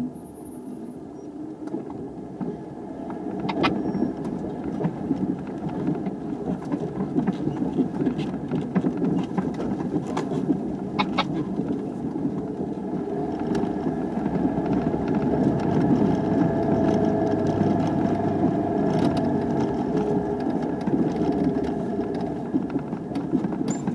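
Four-wheel-drive vehicle's engine and drivetrain heard from inside the cab as it crawls over a rough dirt trail, with scattered knocks and rattles from the bumps. The engine grows louder through the second half as the vehicle climbs a steep pitch.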